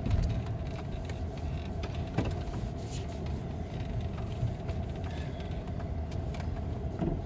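Interior noise of a vehicle driving slowly: a steady low engine and road rumble with a constant hum, and a few light clicks and rattles.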